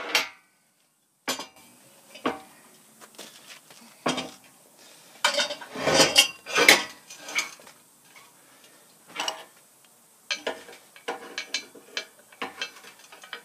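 Steel clanking and rattling as a square-tube steel hoist leg with C-clamped steel brackets is flipped over and handled on a workbench, with a cluster of loud clanks about six seconds in.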